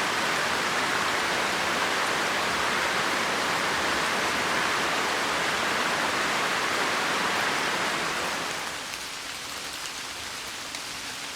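Steady heavy rain. About nine seconds in it fades to lighter rain with scattered drops.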